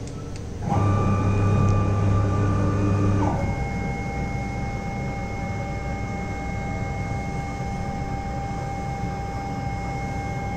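CNC router running a job, its motors giving a steady mechanical whine while the spindle head moves across the bed. The whine starts loud about a second in, then about three seconds in shifts to a quieter, steady tone of a different pitch.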